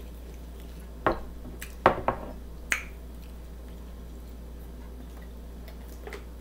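Drinking from a plastic water bottle: about four sharp clicks and crackles in the first three seconds, over a steady low hum.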